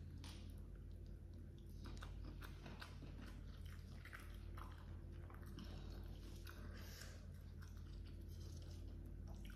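Close-up chewing of a mouthful of grilled rice with baby squid and petai beans, with small irregular wet mouth clicks and crunches, over a steady low hum.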